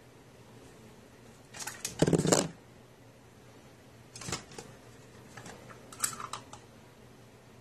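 Small hard objects clicking and clattering in three short bursts, the loudest about two seconds in, like things being handled and set down.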